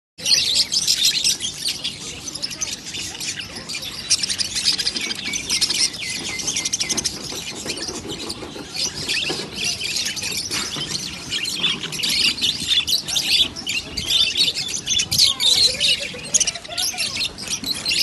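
A flock of caged budgerigars chirping and chattering at once, a dense, unbroken twitter of many overlapping high calls.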